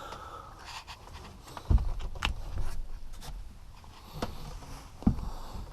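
A person moving through an attic: two heavy thumps and some scraping from clambering over the framing, with a few sharp clicks.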